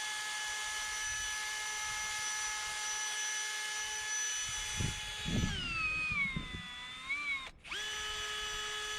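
Electric drill whining at steady speed while cleaning old engine spare parts. About five seconds in, its pitch sags and wavers with a scraping sound as it is pressed against a part under load. It stops for a moment near the end, then runs up again to full speed.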